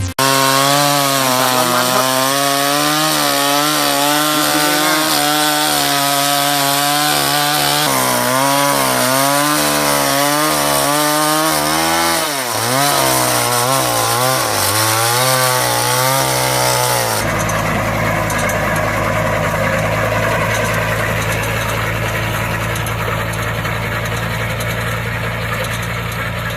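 A small engine-driven machine working under load, its pitch dipping and recovering again and again. About two-thirds of the way through it changes to a steadier, duller running noise.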